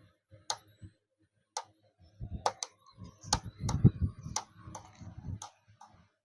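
Jhatka machine (electric fence energizer) clicking out its pulses, sharp ticks roughly every half second to a second, with a low rumble under them in the middle. The pulses come too quickly and it does not give a proper shock, a fault the repairer suspects lies in loose legs on its switching MOSFET.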